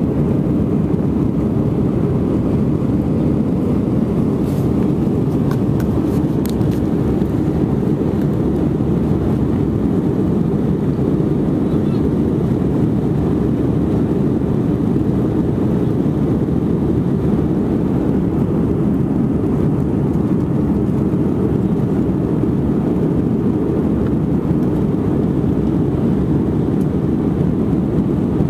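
Steady rumble of an Airbus A319 airliner in flight as heard inside the passenger cabin: engine and airflow noise, even and unchanging, with a few faint clicks about five seconds in.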